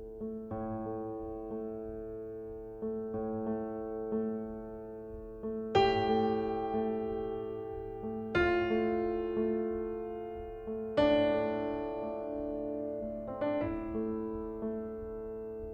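Background piano music: slow, gently struck notes repeating about once a second, with louder chords every two to three seconds that ring and fade.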